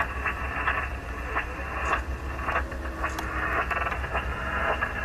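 Steady rushing wind and sea noise on the open deck of a moving patrol boat, harsh and crackling, with frequent short knocks of gusts on the microphone. A low engine drone runs underneath.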